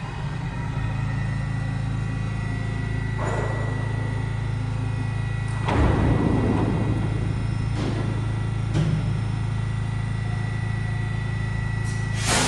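R68 subway train standing at the platform with a steady low hum, broken by several short hisses of released air. The longest and loudest hiss comes about six seconds in, and another near the end.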